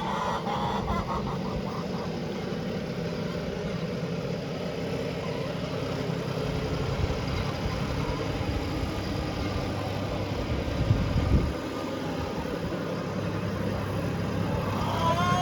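Farm tractor engine running steadily while the tractor manoeuvres, with a brief louder low bump about eleven seconds in.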